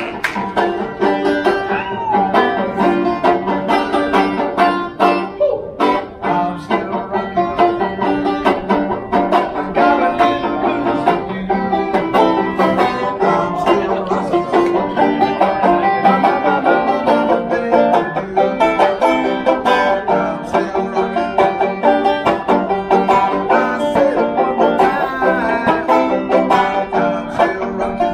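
Music on a plucked string instrument, a steady stream of quickly picked notes.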